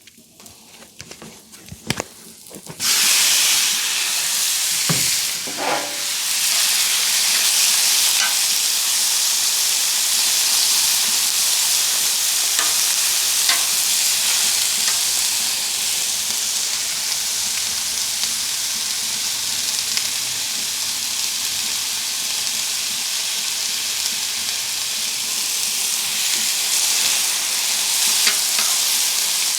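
Seasoned boneless chicken thigh pieces going onto a hot oiled flat-top griddle: a loud sizzle starts suddenly about three seconds in and keeps on steadily, with scattered small pops and spatters.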